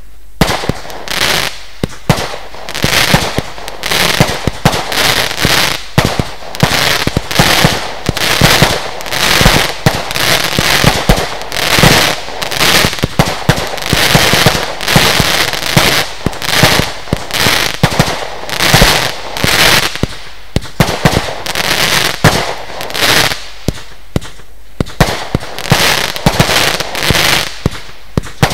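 Lesli Dezemberfest 20 mm compound firework battery firing: a rapid, continuous run of launch shots and small aerial bursts, several a second.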